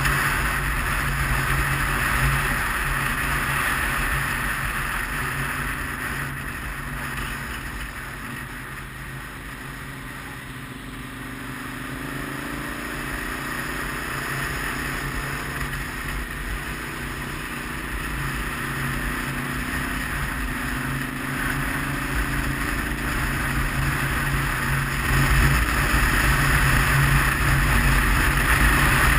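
Wind rushing over the microphone of a camera mounted on a moving motorcycle, with the bike's engine running underneath. The rush eases about a third of the way in, the engine note rises and falls through a bend, and the rush grows louder again near the end as the bike picks up speed.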